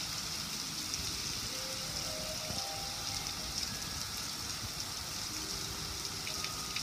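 Steady rush and splatter of water pouring off a gas grill's lid and running down onto the grill and the wet patio.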